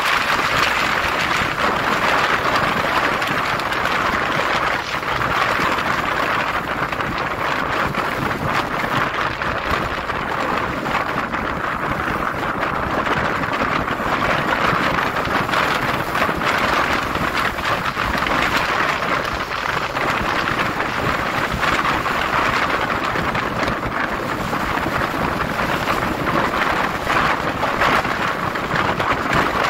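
Steady rush of wind over the microphone mixed with road and engine noise from a motorcycle ride on a concrete road.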